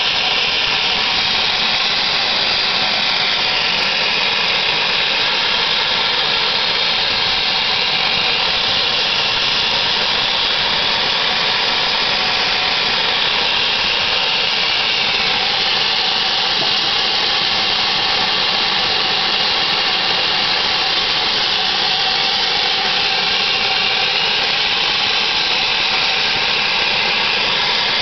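GWR 5700 class pannier tank locomotive No. 5786 giving off a loud, steady hiss of escaping steam, with no exhaust beats.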